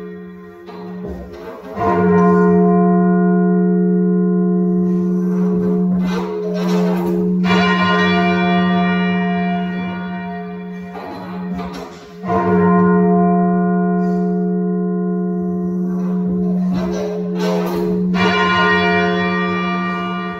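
Church tower bells rung half-muffled-style as a fully muffled peal with the tenor open at backstroke: dull, muffled strokes, broken twice by a loud clear bell stroke that rings on with a long hum, about 2 s in and again about 12 s in.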